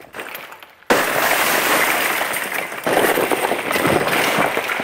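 A big pour of small plastic pieces tipped out of a cardboard box, clattering onto a concrete floor as a dense crackle of many small hits. It starts suddenly about a second in, dips briefly, then comes again with a second surge before it thins out near the end.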